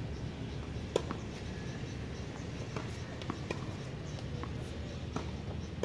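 Tennis rally: several short, sharp pops of a racket striking the ball and the ball bouncing on the hard court, the loudest about a second in, over a steady low background rumble.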